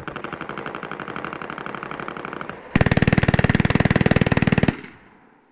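MG 42 machine gun in 7.92×57 mm firing full-auto: two long bursts at its very high rate of fire, the shots running together into a rapid ripping stream. The second burst is louder and lasts about two seconds, then stops abruptly.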